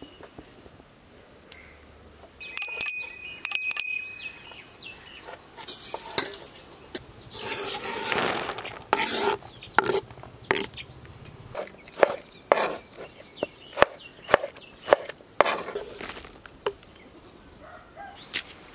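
Food preparation: a run of sharp knocks of a knife on a wooden chopping board, with scraping between them and a brief ringing metallic clink near the start.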